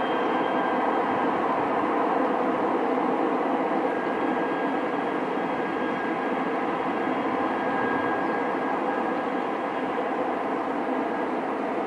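Sukhoi Superjet 100's twin SaM146 turbofan engines running as the jet rolls along the runway: a steady rushing noise with a faint high whine over it.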